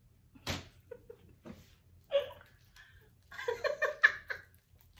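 A woman laughing in bursts, ending in a run of quick, rhythmic laughs in the last two seconds, with a short sharp sound about half a second in.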